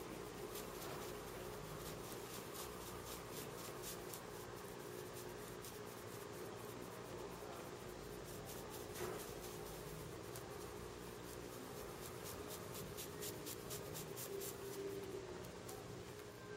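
Faint scratchy rustling of hands kneading, pressing and rubbing a leg through cloth trousers during a Tui Na massage, in quick repeated strokes that come in flurries, over a steady low hum.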